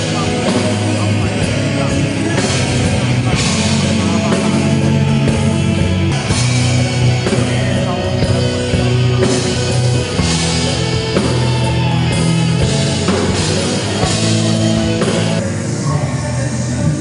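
Loud rock music with electric guitar and drums, running steadily.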